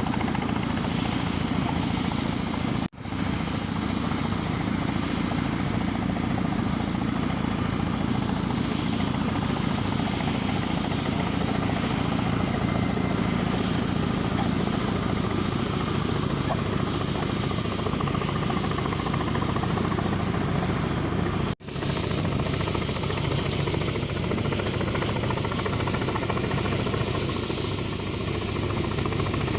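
Kamov helicopter running steadily overhead, its rotor noise mixed with a thin steady high whine. The sound cuts out for an instant twice, at edits.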